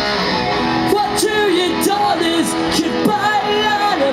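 Punk rock band playing live, with distorted electric guitars, bass and drums with crashing cymbals; singing comes in about a second in.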